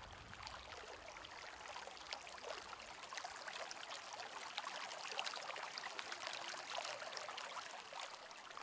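Faint running water, a steady stream-like trickle full of fine splashy ticks.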